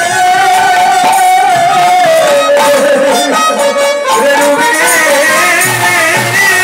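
Bengali devotional kirtan music: a held melody that slides and bends in pitch, over a steady beat of percussion strikes.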